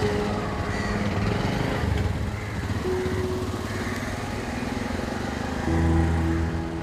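Motor vehicle engines running in street traffic, a steady rattling engine putter throughout, growing louder for a moment near the end.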